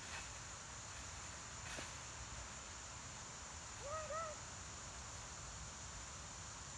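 Steady high drone of insects in the background, with a couple of faint knocks and a pair of short squeaky notes that rise and fall about four seconds in.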